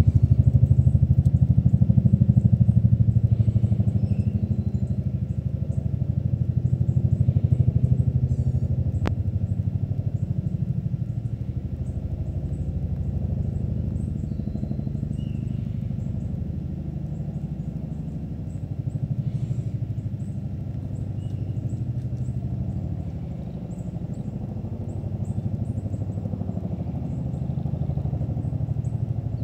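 Bell UH-1 Huey helicopter's two-bladed main rotor beating with a rapid low blade slap. It is loudest at the start, swells briefly again, then slowly fades as the helicopter draws away.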